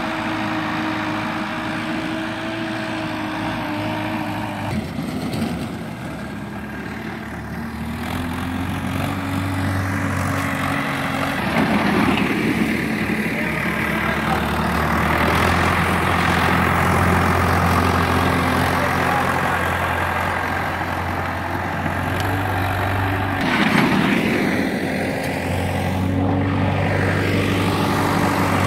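Preet 60 hp tractor's diesel engine running under load while pulling a kraha leveller blade through soil, its note dropping about five seconds in and then climbing again, with two brief swells of rushing noise.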